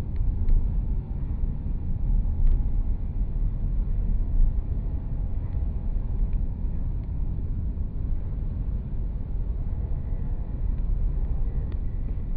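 Steady low road rumble of a car cruising at highway speed, heard from inside the cabin: tyre and wind noise with the engine underneath, with a few faint ticks.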